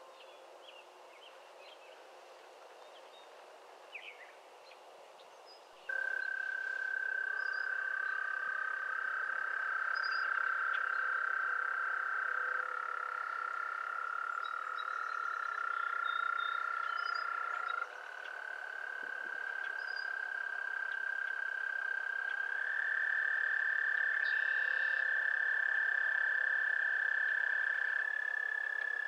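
Frogs calling in long, steady trills, starting suddenly about six seconds in; two or three callers at slightly different pitches overlap and hand over to one another, one trill stopping and a new one taking over about two-thirds of the way through. Before they start there is only faint outdoor background with a few small chirps.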